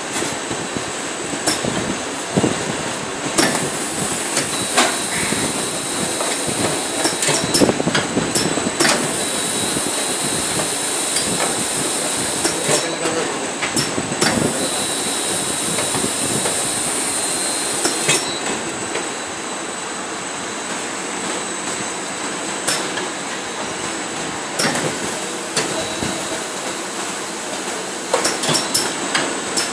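Bottle shrink-wrapping machine running: steady mechanical clatter with sharp knocks every few seconds as packs of bottles are pushed into the film, and spells of high hiss.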